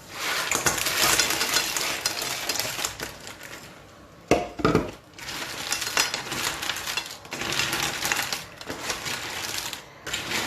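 Cooking clatter: things rattling and scraping in a pot or pan, with one sharp, louder knock about four seconds in.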